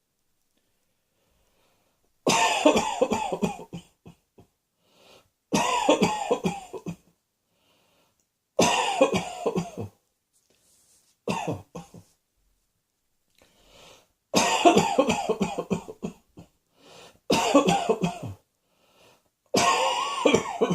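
A person coughing in repeated fits, about seven bouts of several rapid, hacking coughs each, roughly every three seconds with short silences between.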